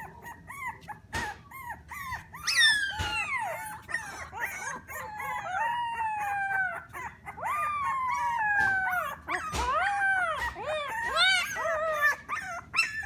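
Three-week-old Alaskan Klee Kai puppy howling and whining in a thin high voice. Long calls slide down in pitch, the loudest a sharp fall about two and a half seconds in, and short arched yips come between them.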